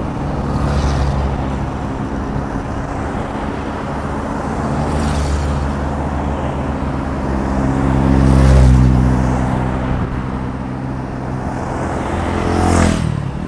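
Motor vehicles of a cycling race convoy passing one after another on a highway, with engines swelling and fading as each goes by. The loudest passes about two-thirds of the way through, and one near the end drops in pitch as it passes.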